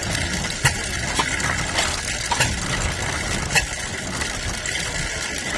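Antique hay baler driven by its 6 horsepower engine, running steadily with irregular metallic clanks and clinks from the working parts.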